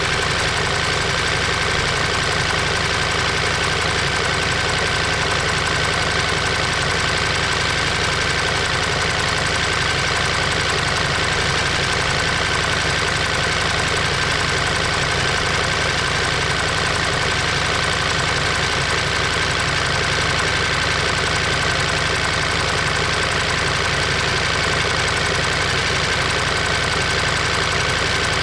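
Ducati Monster 1200 S's L-twin engine running at a steady pitch, recorded close to the engine.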